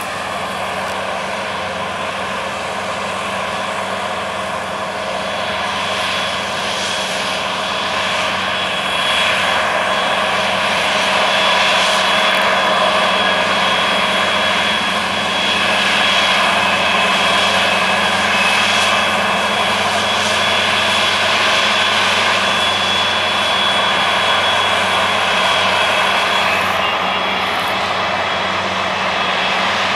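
Tractor and combine harvester running together in a wheat field, a steady engine drone with a few held tones. It grows louder over the first ten seconds or so, then holds steady.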